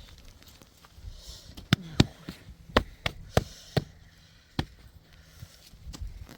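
A series of about six sharp knocks, irregularly spaced, from a little before two seconds in to nearly five seconds in.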